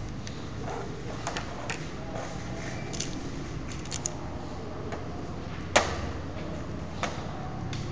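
Small construction-kit parts clicking and tapping as they are handled and fitted together by hand: scattered light clicks, with one sharper click a little after halfway, over a steady low hum.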